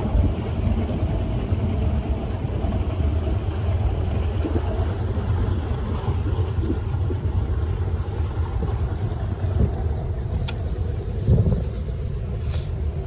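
A motorboat's engine running steadily under way: a continuous low rumble with rushing wind and water noise over it.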